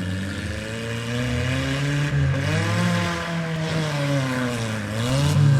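Demolition derby mini truck or minivan engine revving hard, its pitch climbing for about three seconds, dropping back, then rising again near the end.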